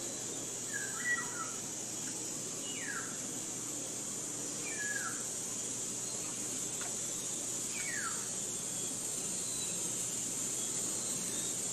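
Forest birds calling: a short warbled call, then three quick downward-sliding calls spaced a couple of seconds apart, over a steady high-pitched hiss.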